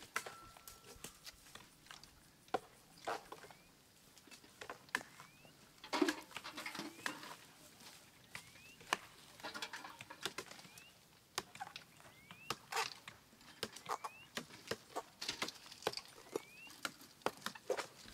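Cork being stripped by hand from a cork oak: irregular sharp knocks and cracks of axe blows and bark being prised loose, with a few short rising chirps in between.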